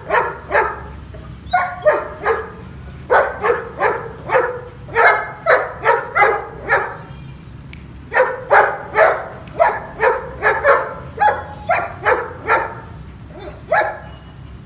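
Long-coated German Shepherd male barking over and over, short sharp barks about two to three a second, in runs with a short pause about seven seconds in.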